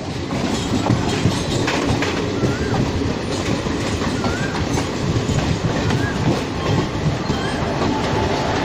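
Steady rumble and wheel clatter of a train running on the rails, heard from on board a moving train, with a few faint short squeals every couple of seconds.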